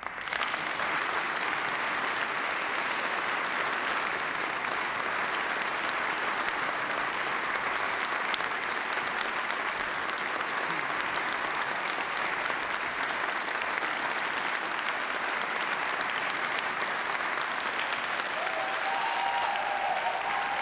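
Audience applauding, breaking out suddenly as the last chord of the music dies away and continuing steadily.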